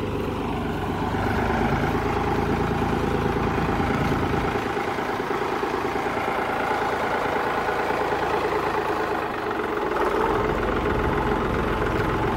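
Farm tractor engine running steadily, its deep rumble weakening for several seconds midway.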